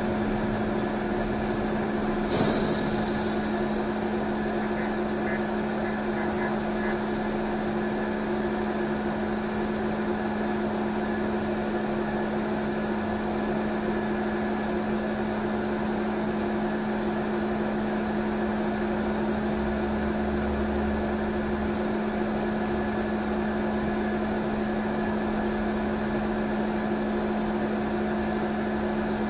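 Trolleybus heard from inside the cabin: a steady electrical hum with a couple of held tones from its motor and electrical equipment. About two seconds in there is a short hiss of released air, and a fainter one a few seconds later.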